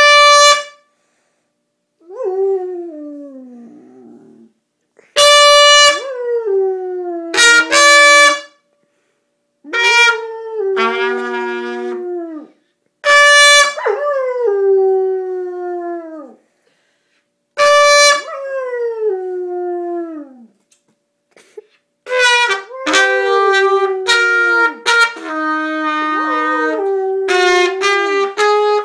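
A trumpet plays short, loud notes, and after each one a dog howls along in long tones that slide down in pitch. Toward the end the trumpet notes and the howling run together without a break.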